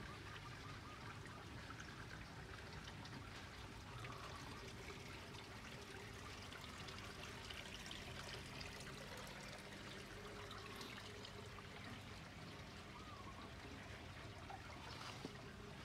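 Faint, steady trickle of water: nutrient solution running through a hydroponic PVC pipe system.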